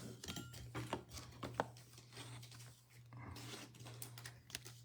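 Faint clicks and rustles of trading cards being handled and set down on a sorting board, over a steady low hum.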